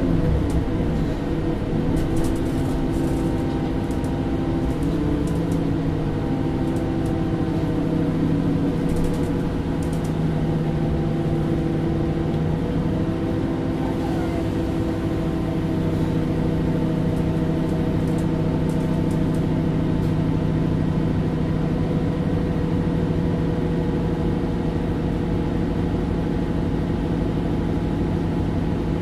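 MAN Lions City CNG city bus running. The engine and drivetrain note shifts in pitch a few times in the first half, then holds steady.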